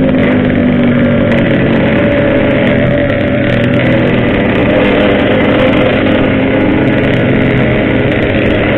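Yamaha RX-King's two-stroke single-cylinder engine running at a steady, even pitch under way, with no big revs.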